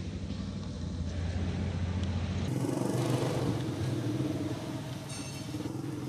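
Steady low rumble that changes abruptly about two and a half seconds in to a steadier low hum, with one short high squeal about five seconds in.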